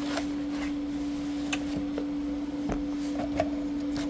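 Cardboard packaging of a card-game bundle box being handled: a few scattered light taps and scrapes as the box is opened and set down. Underneath, a steady electrical hum.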